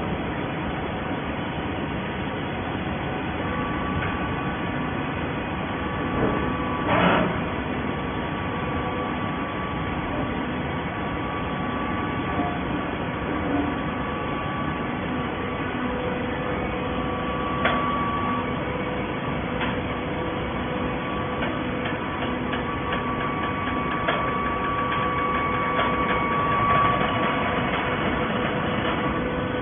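Hydraulic waste paper baler running: a steady machine drone with steady whining tones, a louder burst about seven seconds in, and a few sharp clicks later on.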